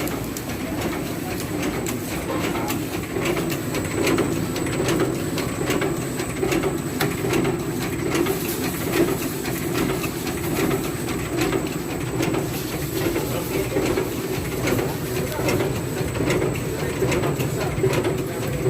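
Repaired cutting machine running on its test run: a steady low drone with many fast, irregular clicks and a thin high whine over it.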